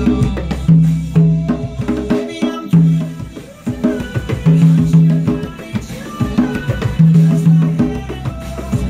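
A pair of wooden conga drums played by hand in a tropical Latin rhythm over a recorded pop song's instrumental backing with steady bass notes. The backing thins out briefly about two and a half seconds in, then the groove carries on.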